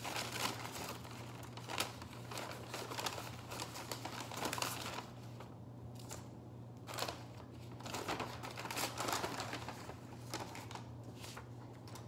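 Brown paper bag and a paper cut-out crinkling and rustling in irregular bursts as the cut-out bear is worked into the bag, with a short lull about halfway.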